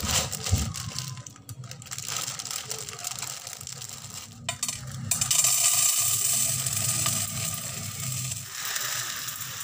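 Dried leftover rice grains pouring from a plastic bag into a stainless steel bowl: a dense, bright patter of grains hitting metal that starts about five seconds in and eases off near the end. Before it, the plastic bag crinkles as it is handled.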